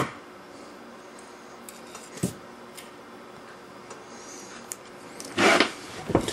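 Light clicks of metal scissors handled against a car dash clock's hands and face, with a short scrape about five and a half seconds in, the loudest sound.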